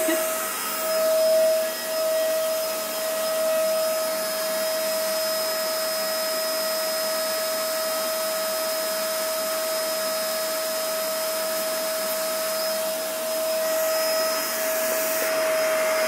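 Canister vacuum cleaner running steadily: a constant motor whine over a rushing-air hiss, with a brief swell in loudness about a second in.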